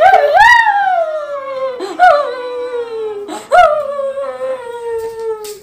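A boy wailing in exaggerated mock crying: three long, loud cries, each rising sharply and then sliding slowly down in pitch.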